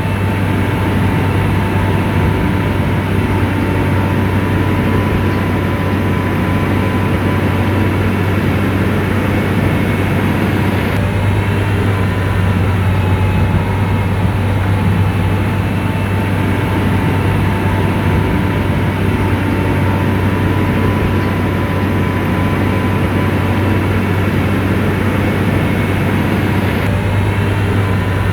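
Diesel engine of an SDLG motor grader running steadily under load: a deep, even hum with a steady high whine above it.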